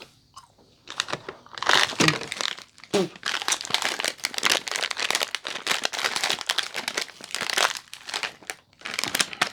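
Plastic snack packaging crinkling as it is handled and opened, a dense run of rapid crackles that starts about a second in.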